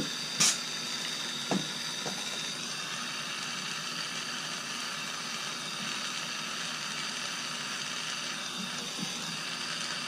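Hand-held gas torch flame hissing steadily while it heats sterling silver beads to make the silver solder flow, with a sharp click about half a second in.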